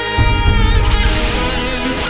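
Music: an instrumental passage with strummed guitar over a heavy beat.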